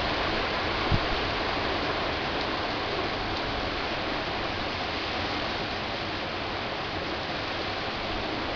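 Heavy tropical-storm rain pouring steadily, a dense even hiss. There is one brief low thump about a second in.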